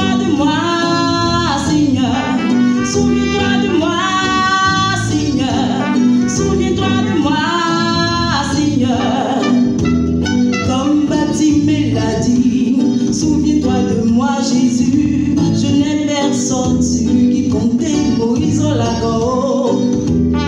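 Live band music: a woman singing into a microphone over a Yamaha electronic keyboard, with a trumpet playing along.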